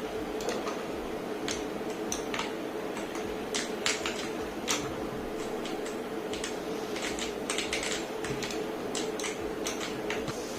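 Akko 5075S mechanical keyboard keys clacking at an irregular pace while it is used to play a game, with single sharp keystrokes a fraction of a second to about a second apart. A steady low hum runs underneath.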